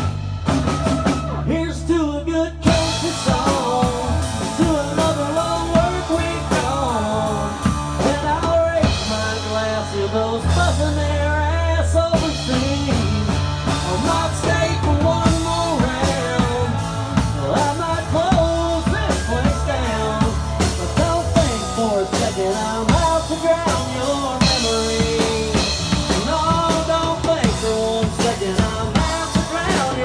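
A modern country band playing a song live: strummed acoustic guitar, a second guitar and a drum kit keeping a steady beat, with a man singing lead into a microphone.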